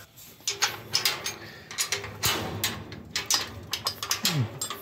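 Metal kennel gate with wire-mesh panels rattling and clanking as it is handled and pushed shut: a string of irregular sharp knocks and rattles.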